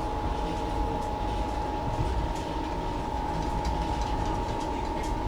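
Interior of an Indian Railways air-conditioned coach on a running train: a steady low rumble with light rattling clicks and a constant high hum.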